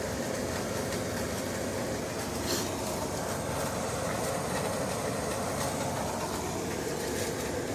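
Air conditioning unit running with a steady hum and whoosh.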